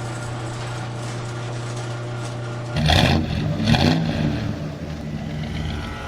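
Deep Orange 9 race car's engine idling steadily, then revved twice in quick succession about three seconds in before it settles back.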